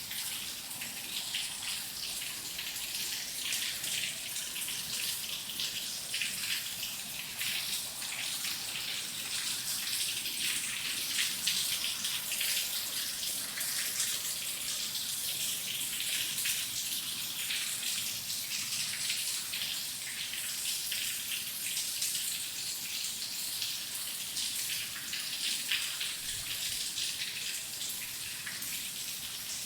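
Heavy rain falling steadily, a dense even hiss made of many small drop splatters.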